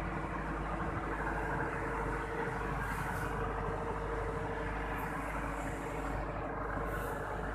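A machine running with a steady drone and several held tones, with a few short high hisses about three, five and seven seconds in.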